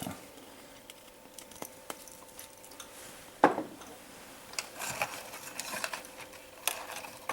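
Faint handling noises of small tools and objects on a workbench: scattered light clicks, one sharp click about three and a half seconds in, then light clattering and rustling over a faint steady hum.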